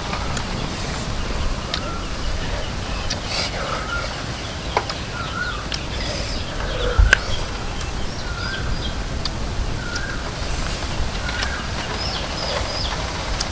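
Chickens clucking in short calls here and there, over a steady hiss. Scattered sharp crackles come from the wood fire under the wok.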